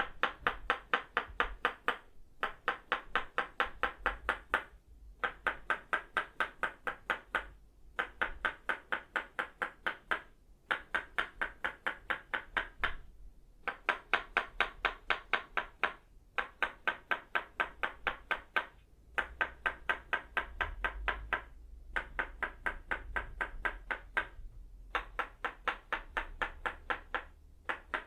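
Tok Sen massage tools made of itauba wood: a wooden mallet tapping a wooden peg. The taps come in quick, even runs of about two seconds, with short pauses between runs.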